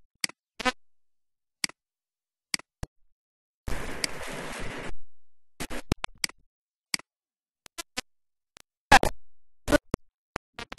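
Computer mouse clicking: a dozen or so short, scattered clicks, with a stretch of noise lasting just over a second about four seconds in.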